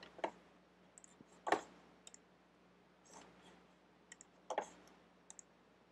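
Computer mouse clicking: a dozen or so short, faint clicks, some in quick pairs, with two louder ones about one and a half seconds in and about four and a half seconds in.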